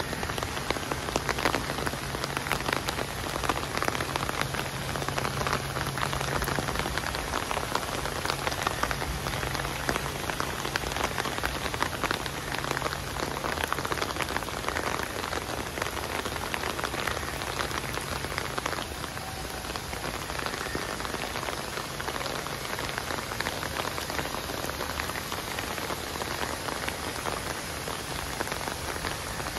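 Steady rain falling on foliage and wet paved paths: an even hiss of rain with many individual drops ticking close by.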